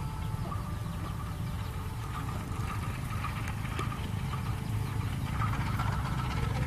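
Diesel locomotive engine running with a steady low rumble as the locomotive rolls slowly toward the listener.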